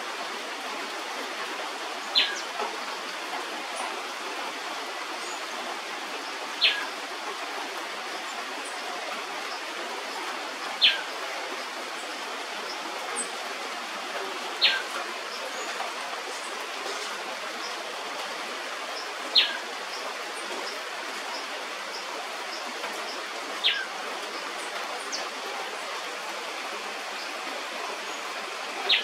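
A bird gives a short, sharp call that drops in pitch, seven times at roughly four-second intervals, over a steady hiss of rain.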